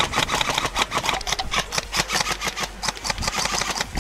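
Airsoft electric replica rifle firing on full auto: a fast, even rattle of shots.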